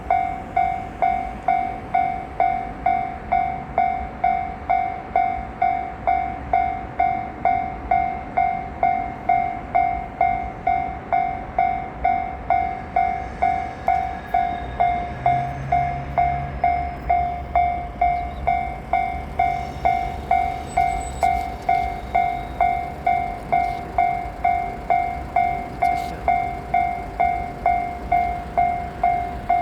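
Japanese railway level-crossing warning bell ringing with a steady, even stroke about twice a second, the signal that a train is approaching. A low rumble builds underneath from about halfway through.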